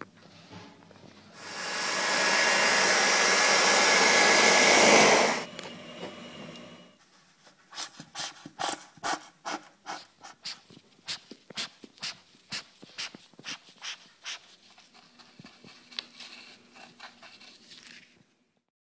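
Insect-killing powder being puffed from a hand-squeezed duster: a loud hiss of air lasting about four seconds, then a run of short sharp puffs, about two a second, with softer ones near the end.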